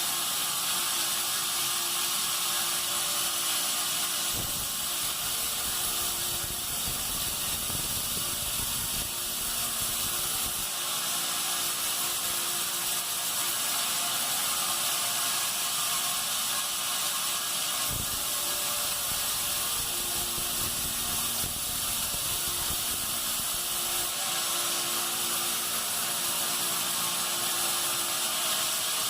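Band sawmill machinery running with a steady mechanical rattle and a high hiss, with two dull knocks, one about four seconds in and one about eighteen seconds in.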